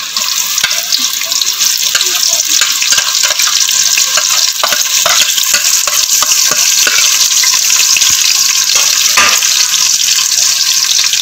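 Sliced onions frying in hot cooking oil in a pot, just tipped in: a steady, dense sizzle with many small crackling pops.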